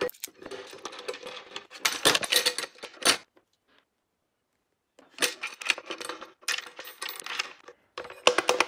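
Small steel bolts, washers and a steel bracket clinking and tapping as they are handled and fitted against a thick plastic skid plate, in quick irregular clicks. The clicking stops for about two seconds in the middle, then picks up again.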